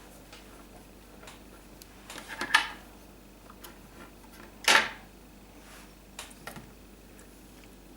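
Scattered small clicks and taps of Play-Doh clay and plastic pieces being handled on a tabletop, with two louder knocks about two and a half and nearly five seconds in.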